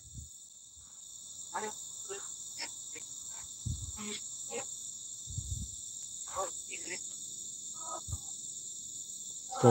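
Steady high-pitched chorus of crickets and other insects, joined by a few brief faint sounds and soft low thumps.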